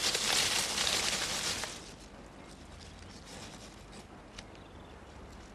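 Dry grass and leaf litter rustling and crackling as a young gorilla pulls at it to make a ground bed. Loud for the first couple of seconds, then dropping to faint rustles.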